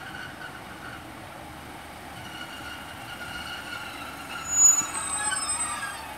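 Class 150 Sprinter diesel multiple unit drawing into the platform, its brakes squealing as it slows to a stop. A sharp, loud, high squeal comes about four and a half seconds in, followed by squealing tones that fall in pitch.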